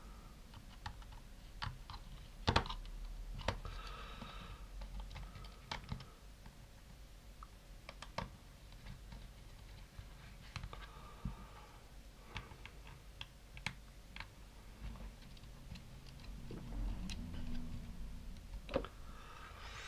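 Light, scattered clicks and taps of a small screwdriver and fingers working on the plastic body of a Panasonic HC-V180 camcorder as its tiny screws are taken out.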